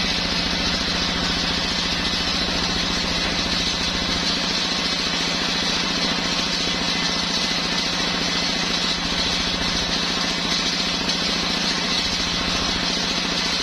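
Engine of a homemade circular sawmill running steadily at constant speed, a pulsing engine hum with a steady hiss high above it.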